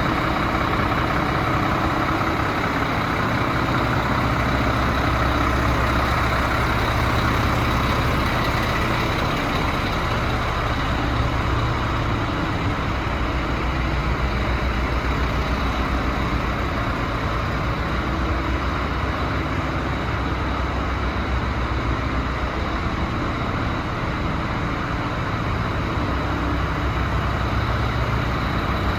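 DAF CF75.310 truck's six-cylinder turbo diesel engine idling steadily.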